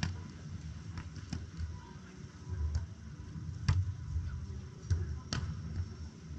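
Volleyball struck by players' hands and forearms during a beach volleyball rally: several sharp slaps, the loudest a little under four seconds in and again just past five seconds.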